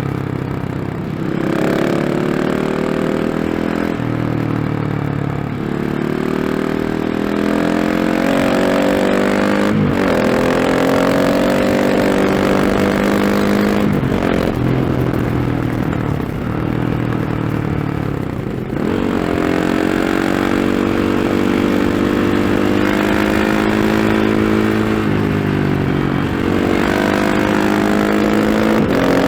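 KTM 690 SMC-R's single-cylinder engine through a Remus slip-on exhaust with the dB killer fitted, accelerating hard through the gears. The pitch climbs, then drops sharply at each shift, several times over.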